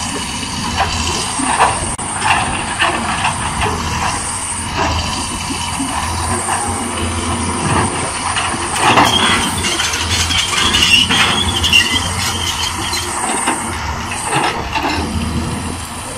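Caterpillar 320D hydraulic excavator working: its diesel engine runs steadily under load, with short cracks and knocks throughout and a high squeal about halfway through.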